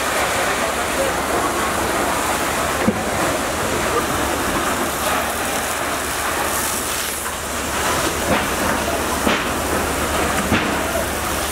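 Fire hose spraying water at full pressure onto burning debris: a steady rushing hiss, with a few sharp knocks.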